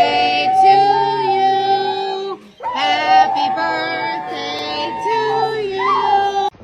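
Singing with music: two long, held, wavering phrases, broken by a short gap about two and a half seconds in, and cut off sharply at the end.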